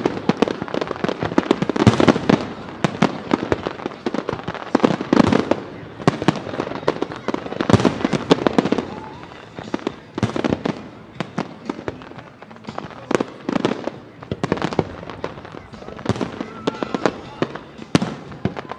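Aerial fireworks bursting: a rapid series of bangs and crackles, in thick volleys with thinner stretches between them.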